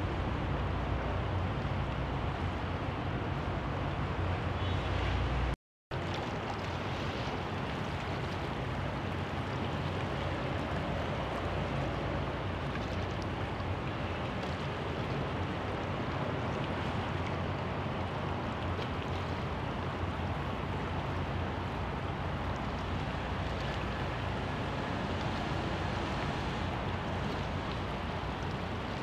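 Riverside ambience on the Seine: an even wash of water, wind and distant city noise, with a low engine hum for the first five seconds. The sound cuts out for a split second about five and a half seconds in, then carries on without the hum.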